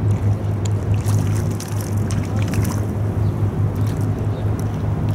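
Low, steady drone of a large ship's engines, with brief hissing sounds over it.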